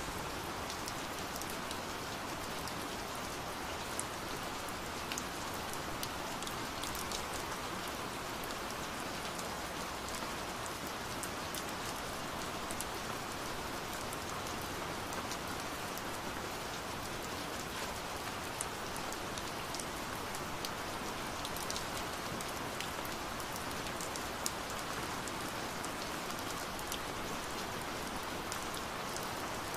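Steady rain falling, an even wash of noise with scattered sharper drop ticks.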